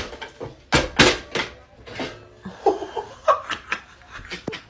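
A person laughing in short bursts, with a few brief voiced sounds about halfway through.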